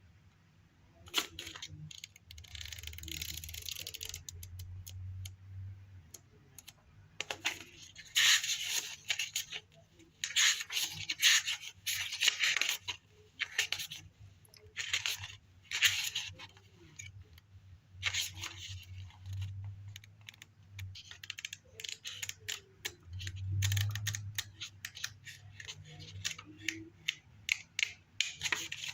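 Pages of a paper guidebook being leafed through: repeated rustles and swishes of paper as pages turn, with small taps and clicks in between.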